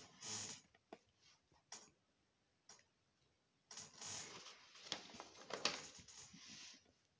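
Sheets of paper rustling and being shuffled by hand, with a few light clicks and taps; the longest, loudest rustle comes a little past the middle.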